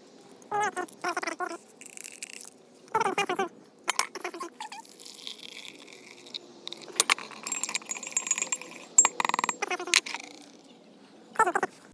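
Hot water poured from a metal kettle into a ceramic mug for about a second and a half, roughly five seconds in, among sharp clinks and several short squeaky calls.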